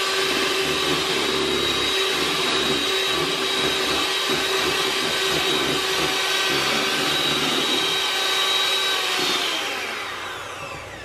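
Hamilton Beach electric hand mixer running steadily with a constant whine, its beaters whipping instant coffee, sugar and hot water into a thick foam. Near the end it is switched off and winds down, the whine falling in pitch.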